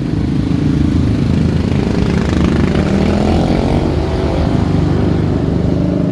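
Kawasaki Barako's single-cylinder four-stroke engine running, revved up once around the middle and settling back. This is the previously hard-starting bike running after its starting fix.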